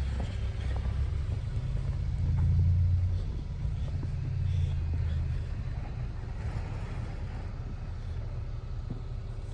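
Low engine rumble of a snow plow truck at work, swelling about two seconds in and again a little later before settling.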